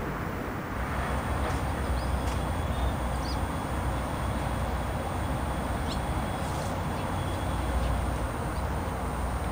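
Steady outdoor ambience dominated by a low rumble like distant traffic, with a thin high whine that comes in about a second in and a few faint high chirps.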